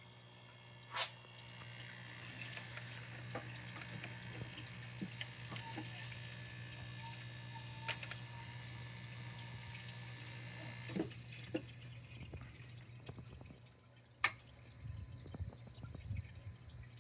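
Water trickling steadily down a small stone waterfall into a garden pond, with scattered sharp drips. Near the end the steady trickle thins into separate plops and splashes.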